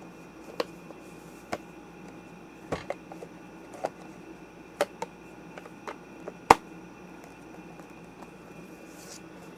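Scattered small clicks and taps as the round bottom cover of a mid-2011 Mac Mini is lined up by its locking dots and fitted back on, the sharpest click about six and a half seconds in.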